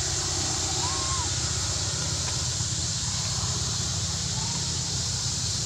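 Outdoor forest ambience: a steady high hiss with a low rumble underneath, and a few faint short chirps about a second in and again later.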